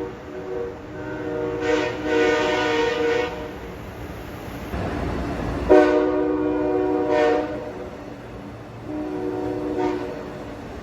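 Amtrak Acela Express trainset's multi-note air horn sounding a string of blasts: a long one lasting a couple of seconds, then the rushing noise of the train going by, a loud long blast, and a shorter one near the end.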